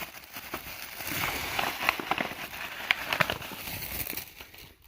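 Paper crinkling and crackling in quick handling noises as a Christmas present is unwrapped, dying away just before the end.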